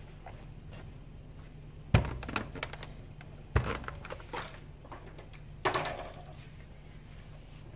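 A few separate dull knocks and thumps, the loudest about two seconds in and others at about three and a half and nearly six seconds: a clothes iron being set down and fused fabric handled on a towel-padded work surface.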